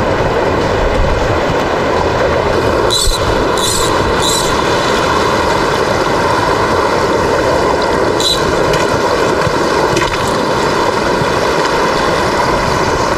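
Small rocky stream rushing over cascades close by: a loud, steady roar of water. A few short clicks stand out three times about three to four seconds in and twice more later.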